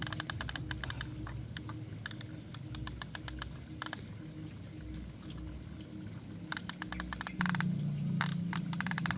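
Toy crane's winch clicking in quick bursts of rapid ratchet-like plastic clicks as it lowers a toy pickup truck, with a low steady hum underneath.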